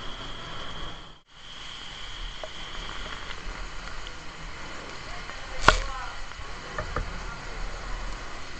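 Fire hose spraying water, a steady hiss, with a high steady tone over the first few seconds. A sharp crack a little past halfway, the loudest moment, and a smaller knock about a second later.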